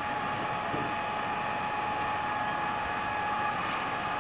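Steady mechanical hum and hiss with a few held tones, unchanging.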